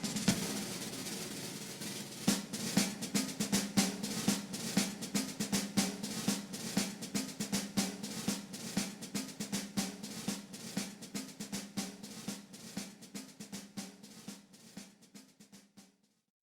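Background music: a rapid snare drum roll over a held low note, fading out near the end.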